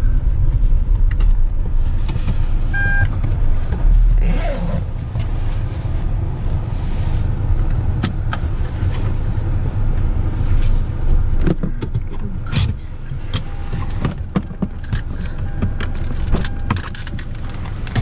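Car cabin noise while driving slowly over a rough dirt lot: a steady low rumble from tyres and engine, with frequent small knocks and clicks, and a short beep about three seconds in.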